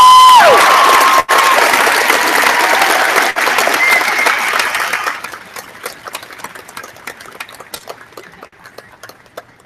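Audience applauding and cheering. A loud held whoop ends about half a second in, and the clapping and cheers stay strong for the first five seconds before dying down to scattered claps.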